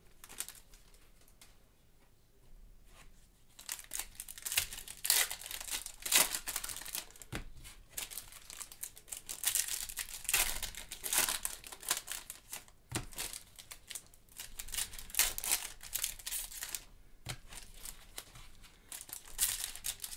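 Foil wrappers of baseball card packs being torn open and crinkled by gloved hands, in irregular crackling bursts. It is quieter for the first few seconds.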